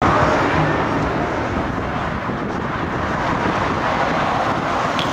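Steady outdoor traffic noise from cars moving along a street.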